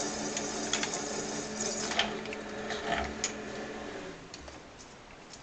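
Small lathe running with a steady hum and scattered light clicks while turning a 3D-printed plastic knob; the spindle is switched off about four seconds in.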